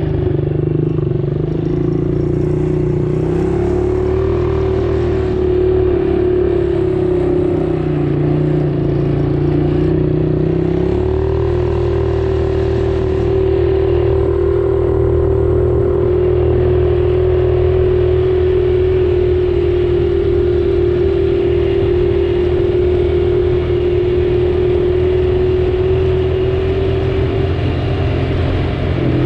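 A motor vehicle's engine running steadily, its note shifting slightly about eleven seconds in.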